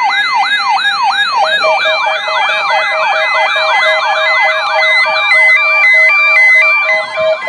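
Weather alert radio receivers sounding their alarms for a NOAA Weather Radio weekly test: several overlapping electronic siren tones, each sweeping down in pitch about two or three times a second. About 1.5 s in they are joined by a beeping alarm that steps back and forth between two pitches.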